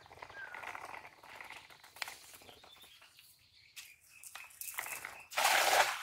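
Cast net landing on pond water near the end: one short, rushing splash as the weighted net hits the surface. Before it there is soft rustling, with birds chirping.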